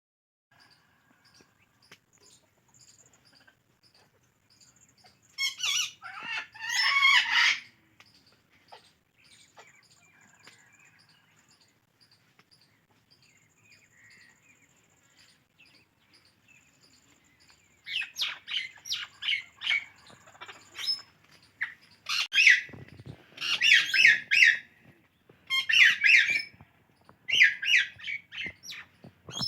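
Indian ringneck and alexandrine parakeets calling: soft chirps, a burst of loud calls about six seconds in, then quieter chirping, and from about two-thirds of the way through a long run of loud, repeated squawks.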